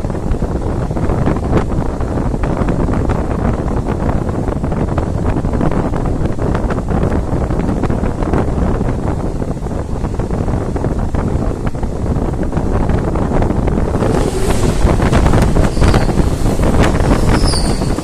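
Wind buffeting the microphone as a steady rumble. About fourteen seconds in, an electric-hauled express passenger train draws up and rushes past at speed, growing louder, with a few brief high-pitched squeals near the end.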